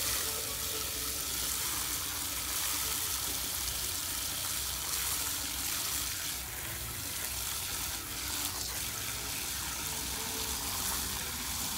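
Garden hose spray nozzle running a stream of water into a plastic bucket: a steady hiss and splash of water.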